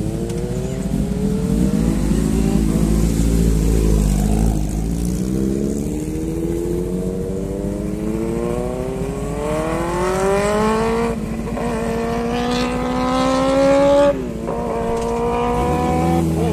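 A vehicle engine runs low and steady for a few seconds, then accelerates with its note rising. The pitch drops abruptly twice, about eleven and fourteen seconds in, as it shifts up through the gears.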